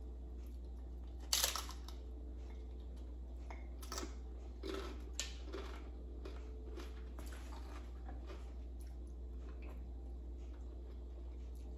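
Bite into a crisp fried corn tostada topped with tuna salad: one loud crunch about a second in, then several smaller crunches as it is chewed.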